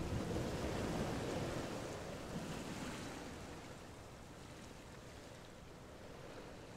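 A steady rushing noise, loudest at first and fading down about halfway through.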